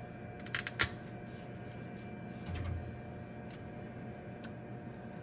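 A few sharp plastic clicks and taps as a jug of isopropyl alcohol and its screw cap are handled and opened, then soft handling of a microfiber cloth, over a faint steady hum.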